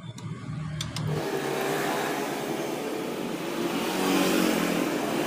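A motor starts about a second in and runs steadily, its pitch slowly rising.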